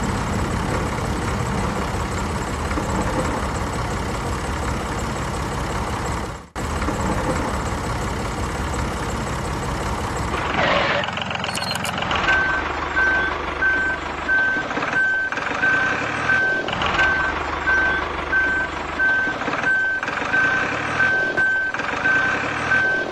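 Tractor engine running, with a reversing alarm beeping steadily about twice a second from about halfway in. The sound cuts out for an instant about six seconds in.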